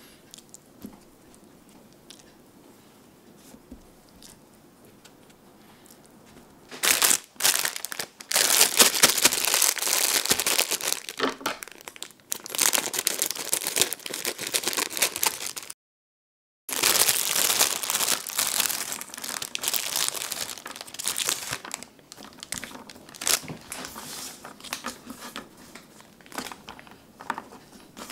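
Crinkling and rustling of a thin plastic bag of green beans being handled and opened, in long loud spells starting about a quarter of the way in and broken by a brief dead-silent gap midway. Softer, scattered handling noises come before and after.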